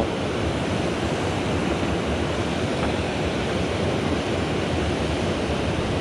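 Steady rush of flowing water from a mountain stream, an even hiss that does not change.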